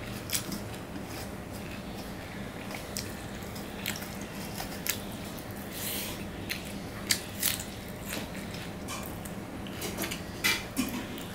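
Bare fingers mixing and squeezing rice with chopped egg-and-onion fry on a steel plate, along with chewing: scattered soft wet clicks and smacks. A steady low hum runs underneath.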